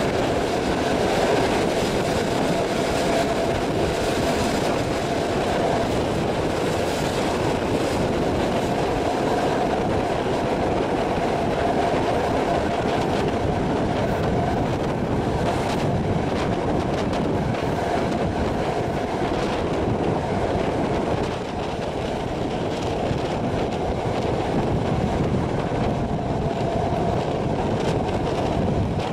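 Passenger train carriage running at speed, heard from a carriage window: a steady rumble of wheels on rails, with scattered clicks over the rail joints and a faint steady whine at times.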